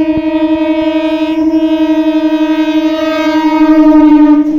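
Horn of an Indian EMU electric local train, sounding one long steady blast as the train approaches and passes the level crossing. It grows louder toward the end, then cuts off sharply.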